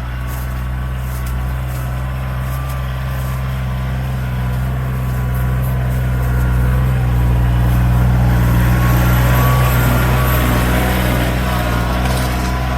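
Tractor engine running steadily as the tractor approaches hauling a load of logs, growing louder toward the middle and easing slightly near the end.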